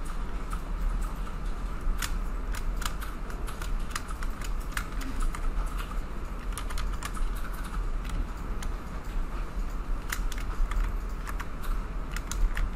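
Irregular clicks of a computer keyboard and mouse, over a steady low hum.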